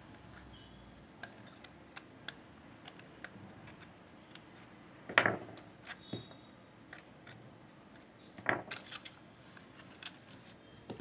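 Faint plastic clicks and rattles of an HP 88A toner cartridge being handled and reassembled with a screwdriver after a drum and PCR swap, with two louder sharp knocks about five and eight and a half seconds in.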